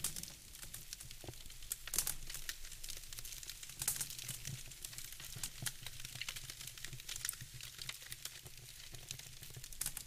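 Wood fire crackling in a fireplace: a dense run of small pops and snaps over a low steady rumble, with louder pops about two and four seconds in.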